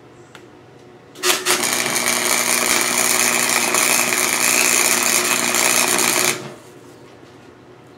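Wire-feed welder arc burning steadily as a weld is run. It strikes a little over a second in and cuts off sharply about five seconds later.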